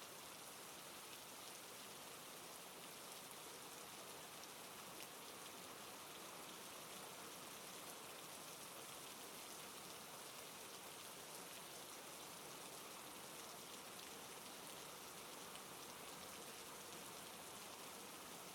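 Faint, steady hiss with no change and no distinct events.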